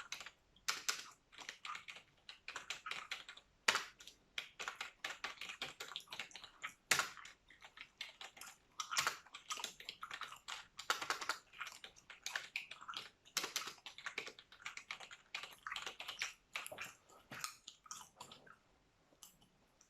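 Computer keyboard typing close to the microphone: fast, irregular key clicks with a few louder strikes, mixed with wet gum chewing.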